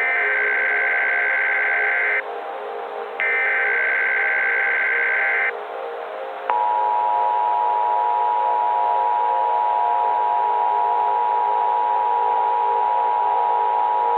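Emergency Alert System tones. First come two bursts of the SAME digital header, a warbling two-tone data screech about two seconds each with a second's gap. Then, about six and a half seconds in, the steady two-tone EAS attention signal starts and holds, all over a steady bed of static.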